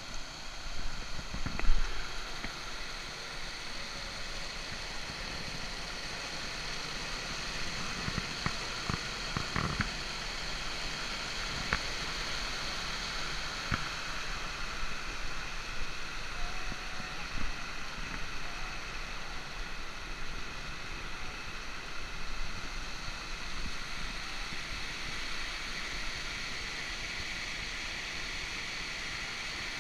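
Water pouring over a low concrete weir, a steady rushing hiss. A sharp thump about two seconds in is the loudest moment, and a few fainter knocks follow.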